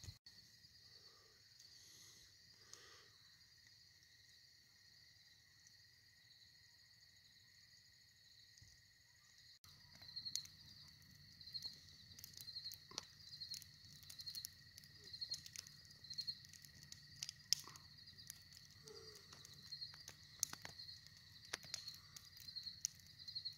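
Faint evening insect chorus: a steady high trill with a second insect call pulsing about twice a second. From about ten seconds in, scattered light clicks and ticks join it.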